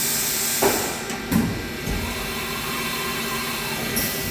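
Haas VM3 vertical machining centre calling up its spindle probe: a sudden hiss of air with two clunks about half a second apart, then a faint steady whine.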